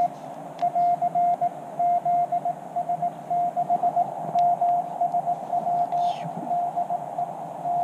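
Morse code (CW) from a portable ham radio transceiver's speaker: a single steady tone keyed in dots and dashes over a faint hiss of band noise.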